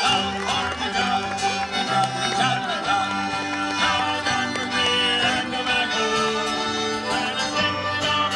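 Folk-style music with fiddle, over a steady bass line.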